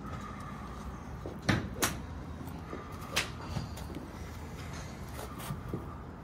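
Sharp clicks of golf balls being struck at a driving range: two close together about a second and a half in, another about three seconds in, and fainter ones later, over a steady background hum.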